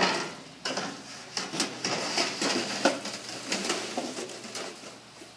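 A thin sheet-aluminium leading-edge skin for a B-17 aileron being handled and laid onto the rib frame: a busy run of metallic rattles, scrapes and flexing sounds that dies down after about four seconds.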